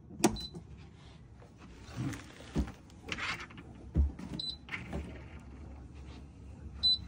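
Xiaomi Townew T1 smart trash can switched on with a click, giving three short high beeps and running its small lid motor, among knocks and plastic-wrap rustle from handling.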